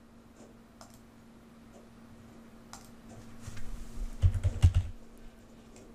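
Computer keyboard typing: a few faint clicks, then a quick run of keystrokes about four seconds in, as a short word is typed into a search box.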